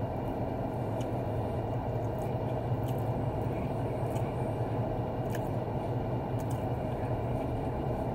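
Steady low hum of a car running, heard inside the cabin, with faint mouth clicks of someone chewing food.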